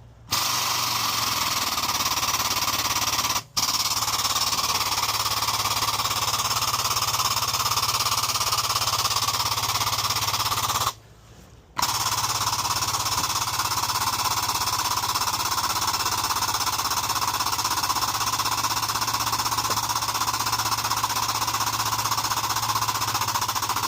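Hydraulic pump driving the ram of a push/pull bushing tool as it presses a new bushing into a CAT 336 excavator's bore: a loud, steady rattling run with a brief drop about three and a half seconds in and a short stop about eleven seconds in, after which it starts again.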